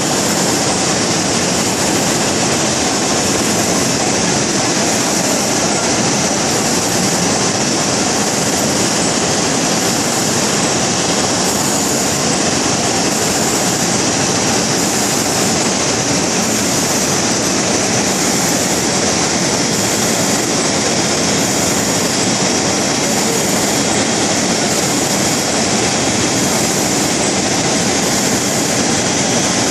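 Two-lane rotary sauce-packaging machine running: a steady, loud mechanical noise with a faint repeating cycle about every one and a half seconds.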